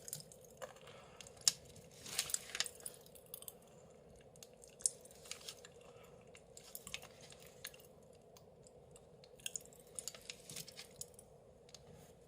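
Close-miked eating of Pachipachi Panic popping candy: scattered sharp crackles and crunches in the mouth, bunched about two seconds in and again near ten seconds.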